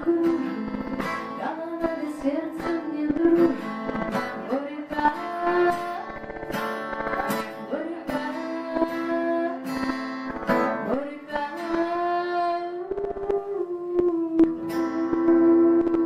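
A woman singing to her own strummed acoustic guitar, with steady strokes under the melody. In the last few seconds she holds one long sung note.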